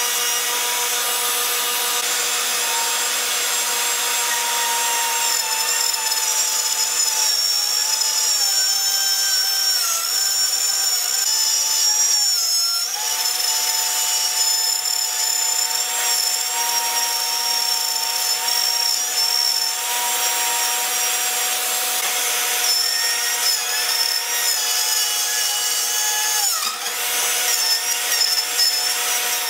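Bosch Colt compact router running at speed while routing a channel along a wooden board. Its steady high whine sags in pitch now and then as the bit bites into the wood, then comes back up.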